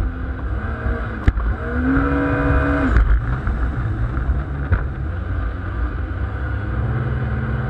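Small boat's engine running at speed over the rush of water and wind, its pitch rising and falling a couple of times as the craft turns past the buoys, with a couple of brief knocks.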